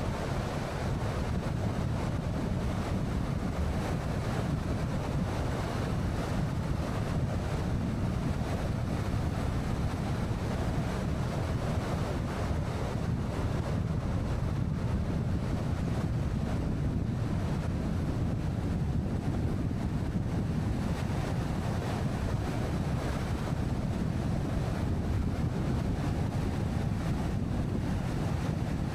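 Steady road and wind noise of a moving car, a constant low-heavy hiss that never changes.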